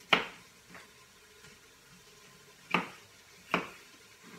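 Kitchen knife chopping a green pepper on a cutting board: sharp knocks of the blade striking the board. There is one at the start, a fainter one just after, and two more close together near the end.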